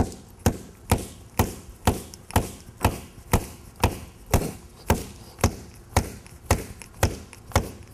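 A rubber mallet striking a concrete paver over and over in a steady rhythm, about two blows a second, tapping it down into the compacted sand bed to level it. The paver is packed in tight and takes many hits to come down.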